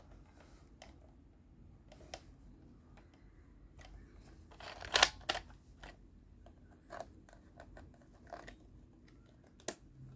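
Scattered small clicks and scrapes from hands working plastic parts, with a denser, louder cluster about five seconds in and a few single clicks near the end.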